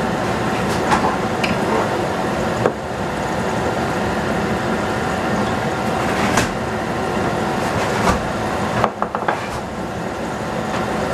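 Bok choy stir-frying in a stainless steel pot on a gas stove: a steady rushing noise with a faint steady hum under it, and scattered clicks and knocks as the wooden spatula and a seasoning bottle touch the pot.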